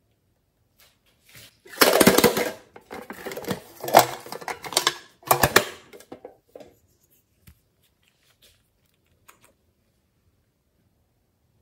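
A small plastic cosmetic bottle with a gold cap being handled close to the microphone: a dense run of clicks and rattles, loudest about two seconds in and again about five seconds in, dying away to a few faint clicks.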